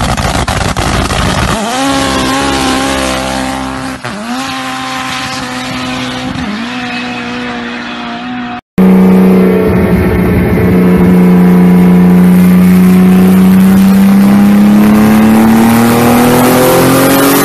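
A modified car's engine accelerating hard away. Its pitch climbs and drops sharply at three upshifts while fading into the distance. After a cut, a turbocharged car's engine runs loud and steady under full load on a dyno, its pitch climbing slowly.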